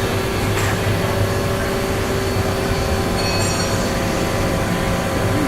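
Mazak QT-250 CNC lathe running a program, spindle turning during a very light turning cut: a steady machine hum with several constant whine tones. A brief high-pitched squeal comes in a little after three seconds in.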